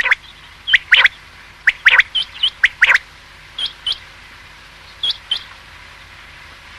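Common quail (batair) calling: about a dozen short, sharp notes in quick pairs and triplets, some dropping in pitch, over the first five and a half seconds.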